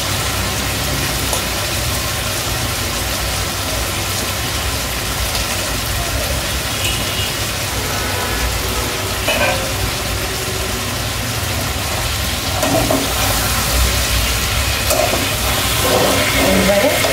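Eggplant, potato and fish-head curry frying in a metal pan on a gas stove: a steady sizzling hiss with a low rumble underneath. A metal spatula stirs and scrapes in the pan over the last few seconds.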